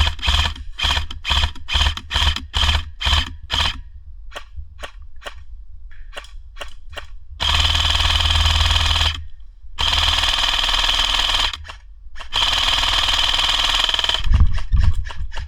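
Airsoft rifle firing: a string of single shots, about two to three a second, then three full-auto bursts of about two seconds each.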